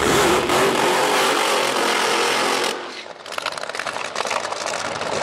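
Drag racing engine at full throttle, a loud, dense noise. About two and a half seconds in, the sound cuts abruptly to another engine running with a rough, rapid crackle.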